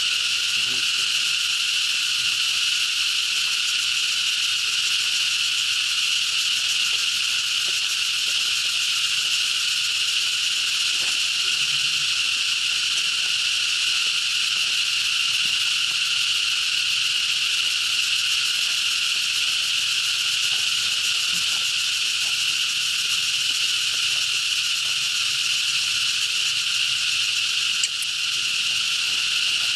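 Dense, steady insect chorus: a constant high-pitched drone that never pauses or changes, with a single brief click near the end.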